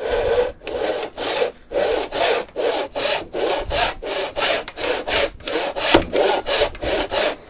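Hand backsaw in a miter box cutting through a wooden board, in a steady, even rhythm of push-and-pull strokes.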